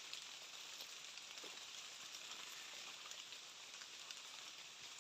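Light rain falling steadily: a faint, even hiss with scattered small drop ticks.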